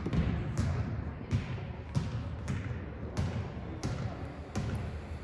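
A basketball dribbled on a hardwood gym floor, bouncing at a steady pace of about three bounces every two seconds, with voices in the gym behind it.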